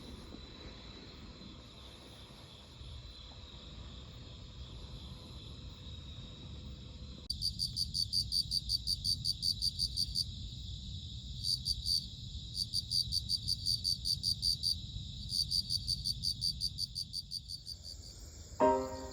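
Crickets singing at night: a faint steady high trill, then, about seven seconds in, a louder cricket chirping in quick regular pulses in runs of a few seconds with short gaps. Music comes in near the end.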